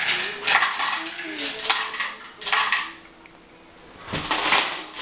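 Small hard pieces rattling and clinking in bursts of about a second, with a short lull before the last burst.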